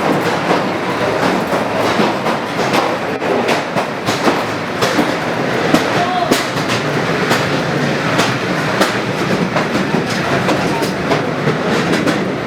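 Carriage of the Blue Mountains Scenic Railway, a cable-hauled incline railway, rattling along its track, with sharp clicks of the wheels over the rail joints.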